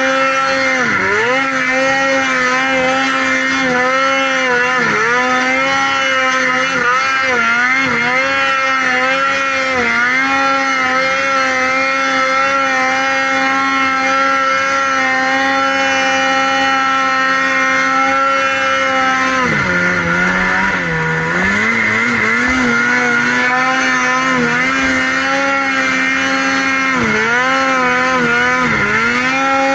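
Snow machine engine held at high revs while climbing through powder, its pitch dropping briefly several times as the throttle eases and then climbing back. The longest dip comes about two-thirds of the way through.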